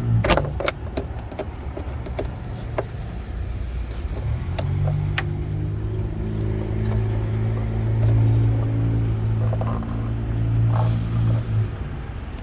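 A motor vehicle's engine running with a steady low hum from about four seconds in until near the end, over a low rumble and scattered light clicks and knocks.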